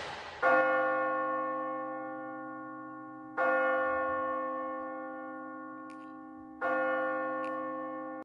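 Church bell tolling slowly: three strokes about three seconds apart, each ringing out and fading before the next.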